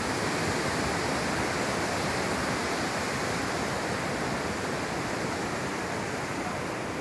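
Steady rushing of a fast mountain river, an even roar of water with no break.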